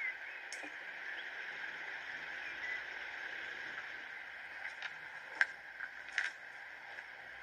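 A few light taps and clinks as food pieces are dropped into glass jars, the loudest about two-thirds of the way through, over a steady background hiss.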